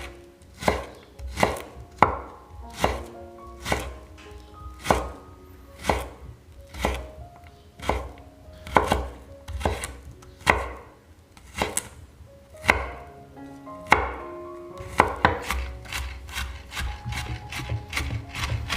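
Kitchen knife chopping on a cutting board, one strong chop about every second, then after about fourteen seconds quicker, lighter chops three or four a second. Faint background music plays underneath.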